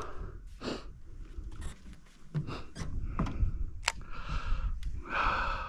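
Baitcasting rod and reel being worked through a lure cast and retrieve: scattered sharp clicks and short whirring passages from the reel.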